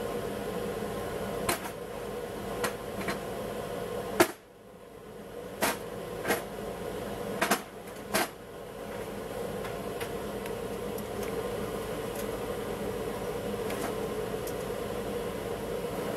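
A red-hot 21-pound silver ingot being knocked out of its mould and set down on the bench: a series of sharp knocks over about the first half, the loudest about four seconds in. Underneath runs a steady mechanical hum.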